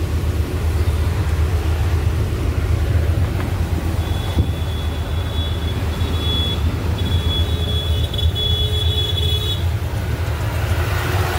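Truck's diesel engine and tyres droning steadily at cruising speed, heard from inside the cab. A thin high whine comes in about four seconds in and stops near the end.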